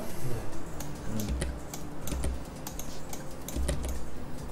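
Computer keyboard typing: light, irregular key clicks, a few a second.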